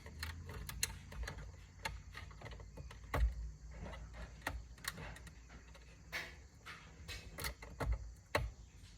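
Scattered light clicks and knocks of hand tools and plastic steering-wheel parts being handled, with a louder knock about three seconds in.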